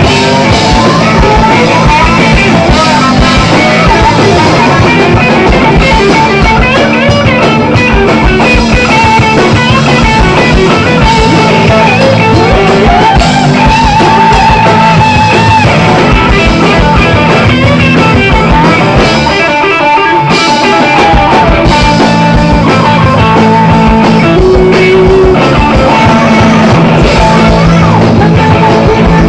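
Loud rock music with electric guitar and drum kit, and some singing.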